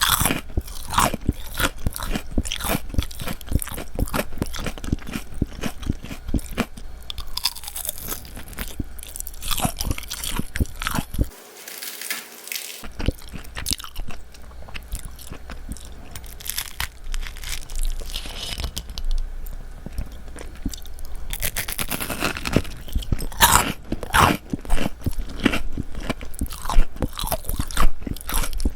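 Close-miked crunching and chewing of battered fried squid: repeated crisp bites and chews of the fried coating, with a brief lull a little under halfway through.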